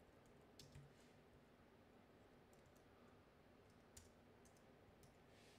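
Faint computer keyboard keystrokes: a handful of scattered, isolated clicks over low background hiss.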